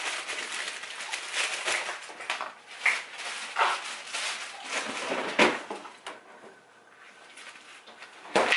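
Items being moved around in an open refrigerator: clattering, clinking and rustling for several seconds, then quieter, with one loud knock near the end.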